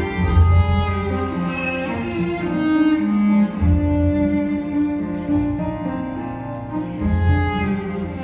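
Cello bowing slow, long held notes. A deeper low note sounds underneath it three times.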